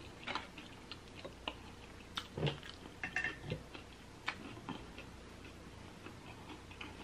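A person chewing a mouthful of sauced oysters close to the microphone: soft wet mouth clicks and lip smacks at irregular times, a few a second at first, thinning out over the last couple of seconds.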